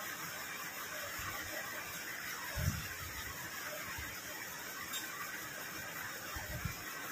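Steady hiss of rain falling, with a soft low thump about two and a half seconds in and a couple more near the end.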